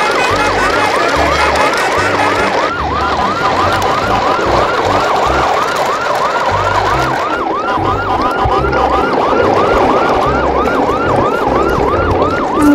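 Electronic siren wailing quickly up and down, about three to four sweeps a second, over a low pulsing beat.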